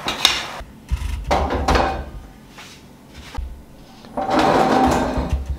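Heavy iron kadai shifted and set down on a gas stove, metal scraping and knocking against the pan support in three bouts, the longest near the end.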